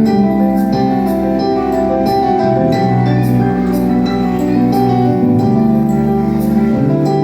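Instrumental nursery-rhyme backing music with held pitched notes and a steady beat.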